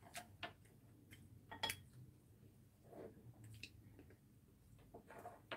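Quiet eating at the table: a few faint, short clicks of a spoon and chopsticks against dishes, with soft chewing.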